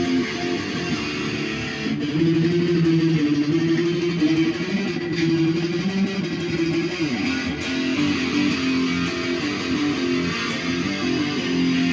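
Jay Turser JT-50 Custom SG electric guitar in drop tuning, played through an amplifier with the gain turned all the way up: sustained distorted chords, with a slide down in pitch about seven seconds in.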